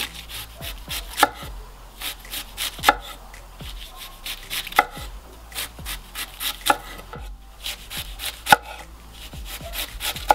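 White cabbage being finely shredded with a wide-bladed kitchen knife on a wooden cutting board: a steady run of crisp slicing strokes, several a second, each ending on the board, with a louder knock about every two seconds.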